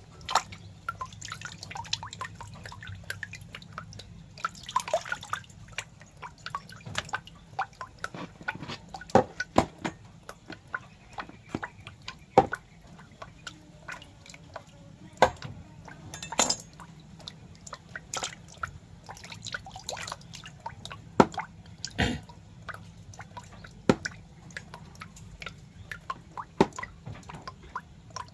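Irregular small wet clicks and drips, some louder than others, scattered through the whole stretch over a faint low hum.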